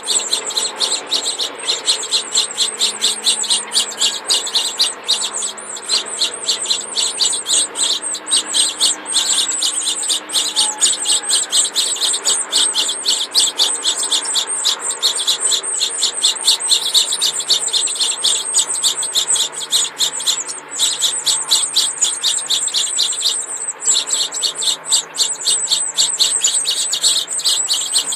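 House finch nestlings begging for food: a rapid, unbroken train of high, shrill chirps, several a second, with a few brief pauses.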